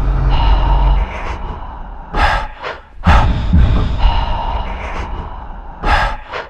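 Heavy gasping breaths, one about two seconds in and another near the end, alternating with a loud deep rumble that runs at the start and comes back in about three seconds in.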